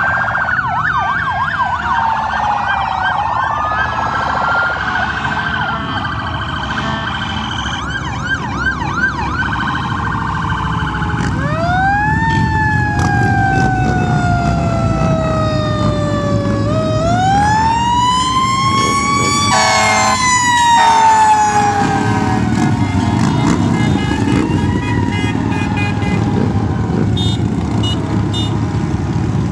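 Emergency vehicle sirens: several fast yelping sweeps at first, then long wails that rise quickly and fall slowly, over the steady rumble of passing traffic.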